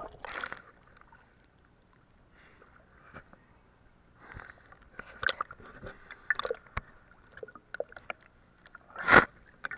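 Seawater sloshing and splashing against a camera held at the waterline, with scattered sharp pops and crackles and a louder splash near the end.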